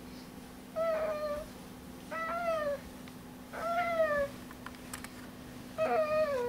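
Long-haired orange cat meowing four times, each call about half a second long and dropping in pitch at the end, about one every second and a half.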